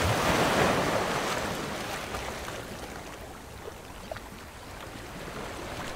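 Sea waves washing in: a rush of surf that swells in the first second and then slowly dies away.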